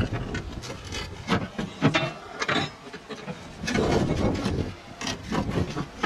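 Clay roof tiles scraping and knocking against each other as broken tiles are pulled loose and moved by hand, in irregular scrapes and clatters.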